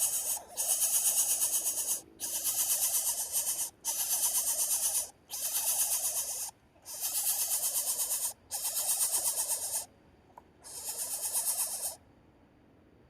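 A bird's harsh rasping hiss, repeated in about seven bursts of a second or two each with short gaps, stopping about twelve seconds in.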